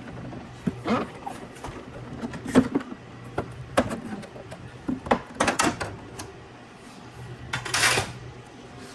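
Plastic side panel of an espresso machine's housing being worked loose and slid off. Its tabs and edges give scattered clicks and knocks, with a short scraping slide near the end.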